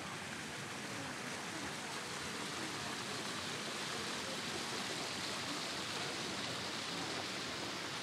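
A steady rushing noise with no distinct events, growing slightly louder and brighter after about three seconds.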